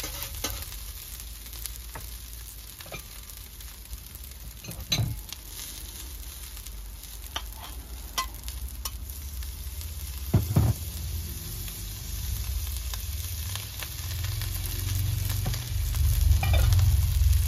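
Rice and vegetables sizzling on a Pit Boss portable flat-top griddle, with a metal spatula scraping and knocking on the steel plate in a few sharp strokes, the loudest about ten seconds in. A low rumble grows louder over the last few seconds.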